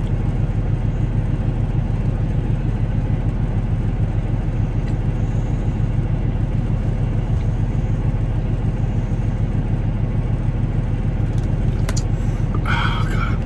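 Steady low rumble of a semi-truck's idling diesel engine, heard from inside the cab. A brief higher sound comes near the end.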